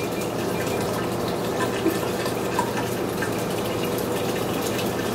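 Cooled wort running steadily from a hose into a glass carboy, splashing and foaming as the fermenter fills. The hose is wiggled in the neck to aerate the wort.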